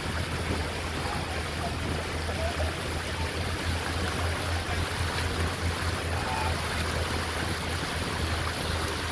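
Tour boat's motor running steadily with a low hum, under a constant wash of water and wind noise.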